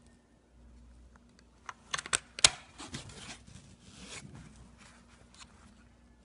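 Plastic battery compartment of an animated toy doll being handled and its cover fitted shut: a handful of sharp plastic clicks about two seconds in, then lighter scraping and handling.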